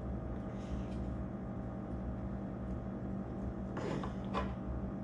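A steady low mechanical hum, with two short noisy sounds a little before the end.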